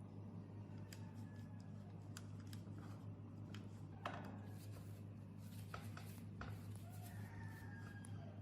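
Scattered light clicks and scrapes of small parts being handled, over a steady low hum; one sharper click comes about four seconds in.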